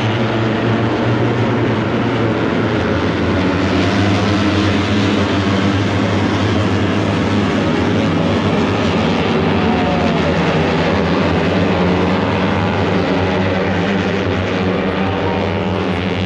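Moto3 racing motorcycles, 250 cc single-cylinder four-strokes, a steady loud drone as the field laps the circuit, with a couple of bikes passing and sweeping in pitch about ten seconds in and near the end.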